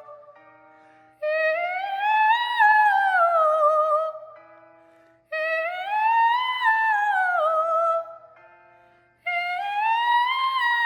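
A teenage girl's wordless singing voice in three arching phrases, each sliding up and back down, with steady instrument notes sounding in the gaps between them: a vocal warm-up or range exercise.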